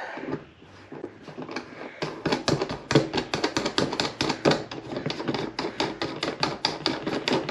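A hand tool scraping the edge of a hole in a plastic case to widen it. It makes quick, even strokes, about seven a second, starting about two seconds in.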